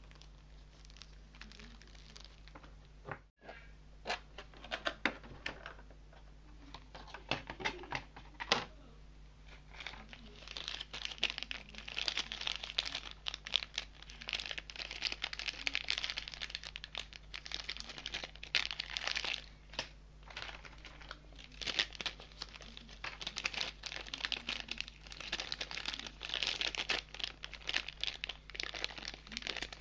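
Clear plastic parts bags crinkling and crackling as they are handled in the hands. Sparse crackles at first, then near-continuous crinkling from about a third of the way in.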